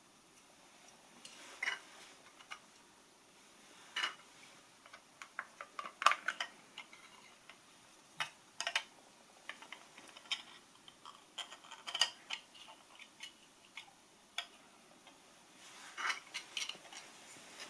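Irregular faint clicks and taps of hard 3D-printed plastic parts being handled and fitted together by hand, a thruster housing and its impeller on a metal shaft.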